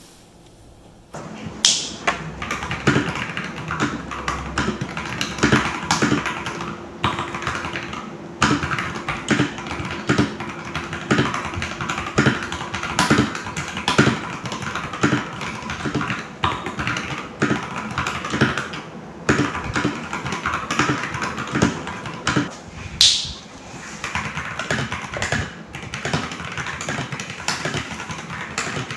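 Typing on an FL-Esports CMK87 mechanical keyboard with its stock Cool Mint switches: a quick, continuous run of key clacks that starts about a second and a half in.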